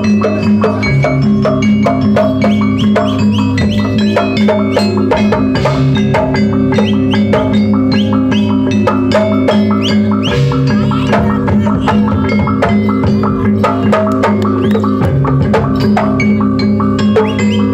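Jaranan gamelan music: drums and gongs with tuned metal percussion playing a fast, busy rhythm over a steady ringing drone.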